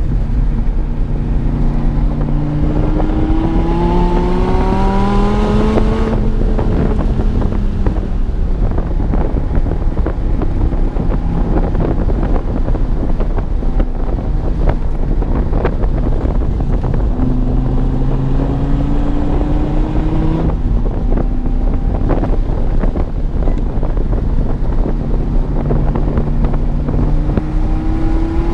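2016 Dodge Viper TA 2.0's 8.4-litre V10, with headers and a tune, pulling hard under acceleration. Its note climbs steadily, drops sharply at each shift, and climbs again, three times in all, the last near the end. Wind buffets the microphone throughout.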